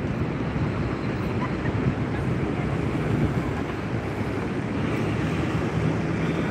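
Steady low rumble of city street traffic, with a faint steady hum joining in past the middle.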